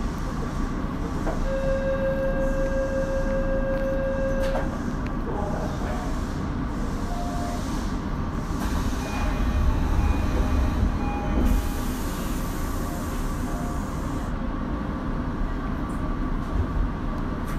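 Tokyo Metro 02 series subway train pulling out of the station: a steady electronic tone for about three seconds near the start, then a continuous low running rumble with short tones over it, loudest about ten seconds in.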